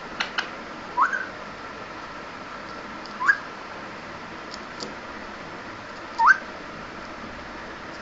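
Three short whistles, each rising in pitch and spaced a few seconds apart, with a few light clicks near the start.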